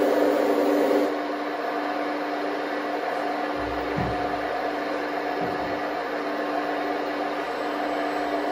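Radio-controlled model excavators running together: a steady machine drone with a couple of held tones, dropping slightly about a second in, with a few dull low thumps midway as the booms and buckets move.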